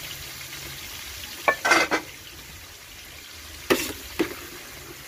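Metal spatula stirring and scraping chopped vegetables and meat in a large aluminium pot, over a steady sizzle of frying. The scrapes come in short bunches, about a second and a half in and again near the end.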